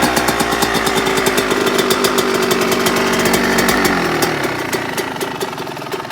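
2018 Yamaha YZ125's 125cc two-stroke single-cylinder engine running at a fast, buzzing high idle just after a cold start, then the revs fall about four seconds in and it settles to a low idle. The idle is set low on purpose, and the owner thinks the engine is running a little lean.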